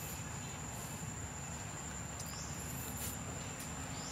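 Steady high-pitched insect drone, with a few short rising chirps every second or two and a low rumble underneath.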